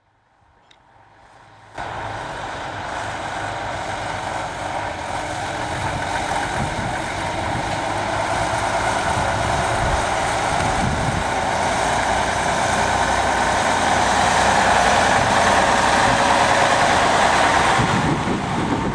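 Heavy truck engine running steadily, growing gradually louder.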